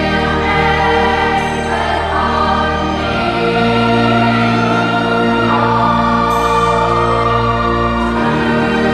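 Background music: a choir singing slow, held chords that shift every few seconds over a steady low bass.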